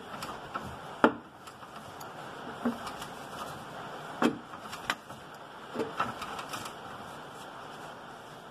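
A few scattered metallic clicks and knocks from hand tools being handled while a torque wrench is readied for the control-arm bushing bolts, over a faint steady workshop hiss.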